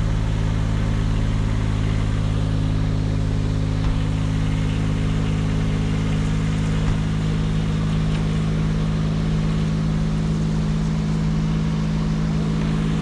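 An engine running at a steady speed, a low even hum with no revving.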